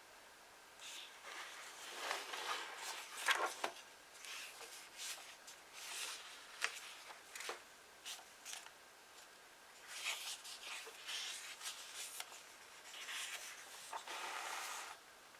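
Paper pages of old books being handled and turned one after another: soft rustles and flicks in bursts with short pauses, and a few crisp snaps of a page.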